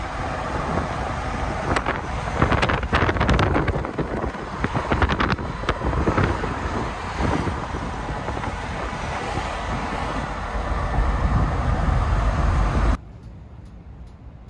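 Vehicle noise with heavy wind buffeting the microphone, with a few sharp clicks or knocks a couple of seconds in. It cuts off abruptly near the end.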